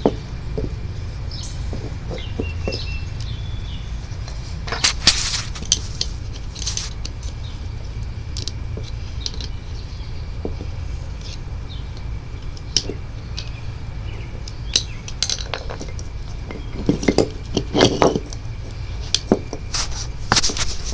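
Intermittent metallic clinks and clatters of tools and metal parts being handled during disassembly, heaviest in short clusters about five seconds in and again near the end, over a steady low rumble.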